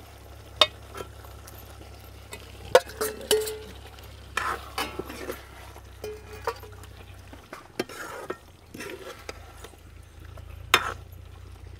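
Steel ladle stirring fish pieces in thin curry in a metal kadai, scraping and knocking against the pan at irregular moments, the sharpest knock near the end, over the faint sizzle of the curry simmering on the fire.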